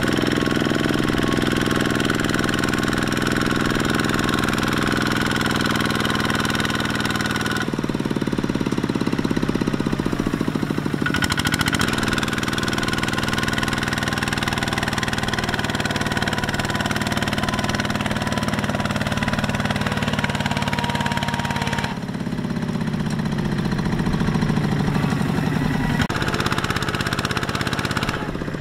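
Kubota single-cylinder diesel engine of a two-wheel walking tractor running steadily under load with a knocking clatter as it drags its paddle wheels and trailer through deep mud. The sound changes abruptly a few times.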